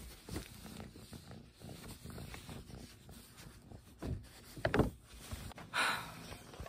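Close-up rustling and bumping as a cat presses against the recording phone and shifts on loose sheets of paper, with a few sharp knocks of the phone being handled partway through and a short louder rustle near the end.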